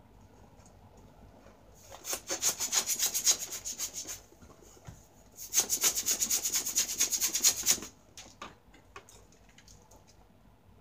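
Hands rubbing an inflated latex balloon: two bursts of fast rubbing strokes, each about two seconds long, the first about two seconds in and the second a little past the middle.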